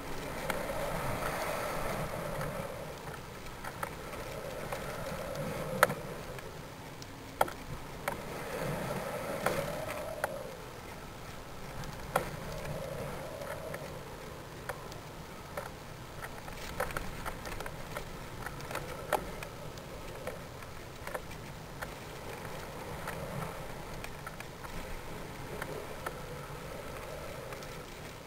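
Noise picked up by a camera riding a rising balloon's flight string: a wavering buzz and hiss with scattered small clicks and knocks, the sharpest about six and seven and a half seconds in.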